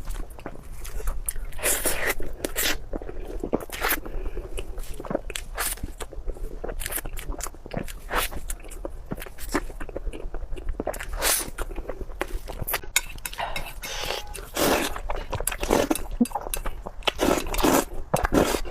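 Close-miked eating: a person biting and chewing food, with irregular crunchy, wet mouth clicks and smacks throughout.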